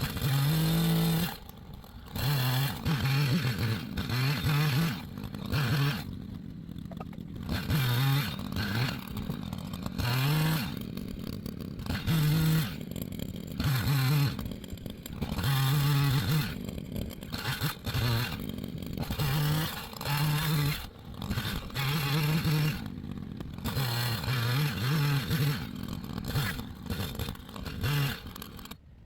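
Echo CS-590 Timberwolf two-stroke chainsaw cutting logs, revving up for each cut and dropping back to idle between cuts, again and again.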